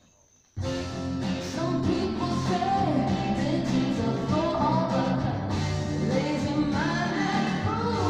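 Near silence for about half a second, then a rock song cuts in abruptly: a singing voice over a full band.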